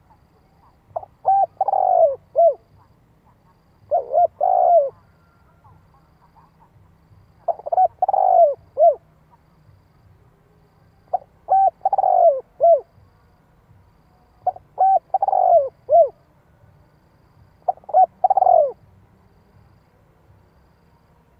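Spotted dove cooing: six phrases about three seconds apart, each a few quick short notes, a longer falling coo and a short closing note.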